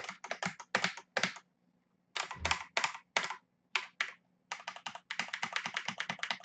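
Mechanical keyboard keys being typed in short bursts of clicks with brief pauses, with a low thump about two and a half seconds in and a fast run of keystrokes near the end.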